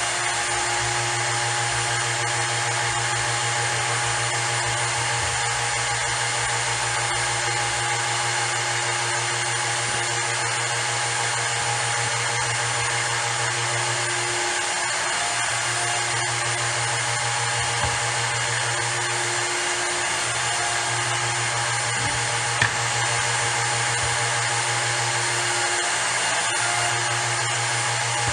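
Router in a router table running steadily at full speed, its roundover bit cutting the edges of wooden chair slats, with a steady whine and hum. One sharp knock about three quarters of the way through.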